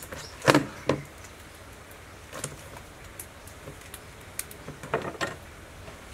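Plastic bowls and a plastic basket handled on a table, knocking and clattering several times. The loudest knock comes about half a second in, and a quick pair comes near the end.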